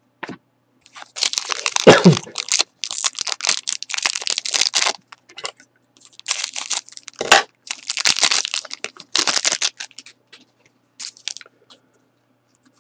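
Foil wrapper of a trading-card pack crinkling and crackling in bursts as it is handled and cut open with scissors, with a sharp snip about seven seconds in.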